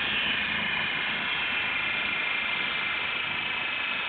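Fiat Grande Punto running on a rolling-road dynamometer, its driven wheels spinning the rollers: a steady, high whine.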